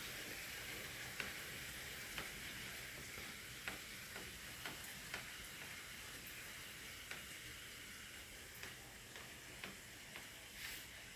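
Light rain falling as a faint steady hiss, with scattered sharp taps of single drops striking close by, about one a second, easing slightly toward the end.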